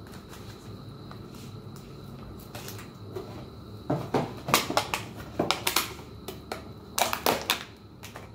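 Thin clear plastic food container crackling and clicking as it is handled and opened, in a burst of sharp crinkles about four seconds in and another about seven seconds in.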